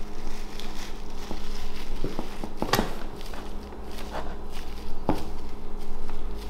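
Plastic cling wrap crinkling and rustling as it is wound by hand around the bases of deer antlers, with a few sharper crackles, over a steady low hum.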